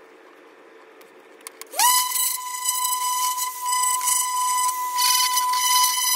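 Cordless random orbital sander switched on about two seconds in, its motor spinning up quickly to a steady high whine, with a scratchy hiss from the pad on wood that rises and falls as it is pressed on a small wooden piece.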